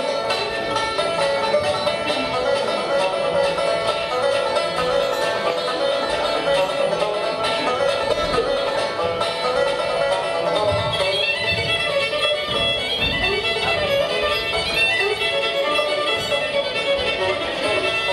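Fiddle playing a bluegrass-style tune, continuing without a break.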